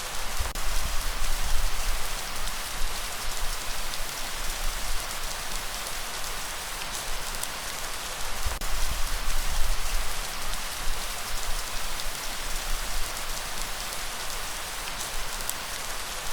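Steady light rain falling, a dense even hiss of drops, with brief low rumbles underneath now and then.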